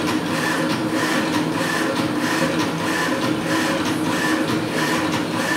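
Full-colour 3D printer's head carriage moving over the build bed: a steady motor whir with a higher whine that swells and fades about twice a second, and light clicks.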